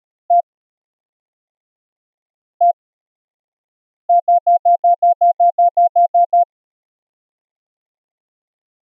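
Morse code sidetone from an UltraPico keyer: one short beep, another about two seconds later, then a quick even run of about a dozen short dits. It is a single clean tone with no harsh overtones, the keyer's square-wave sidetone smoothed by low-pass, high-pass and band-pass filters.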